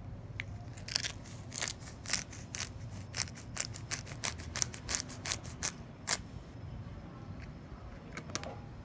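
Pepper grinder grinding black pepper: a run of sharp ratcheting clicks, about three a second, for some five seconds, then a few scattered clicks near the end.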